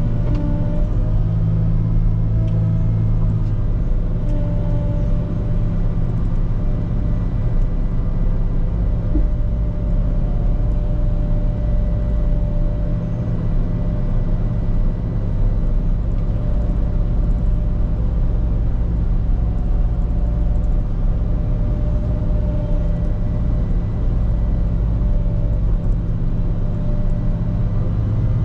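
Volvo L90H wheel loader's diesel engine running steadily under load, a steady low drone with a fainter whine above it.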